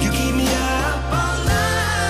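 Background Christmas pop song: a sung vocal melody over steady bass notes.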